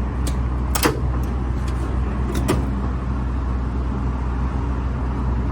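Steady low mechanical hum, like an idling engine or generator, with a few sharp clicks about one and two and a half seconds in.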